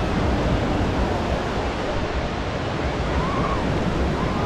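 Ocean surf washing onto a beach, a steady rushing, with wind buffeting the microphone.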